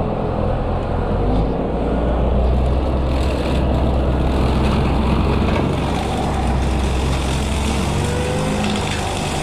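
Small excavator's engine running while it works a 42-inch Bushmaster bush-hog brush-cutter head. The sound swells about a second and a half in and eases slightly near the end.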